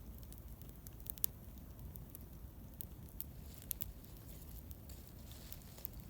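Wood campfire crackling: irregular sharp pops and snaps over a low, steady rumble.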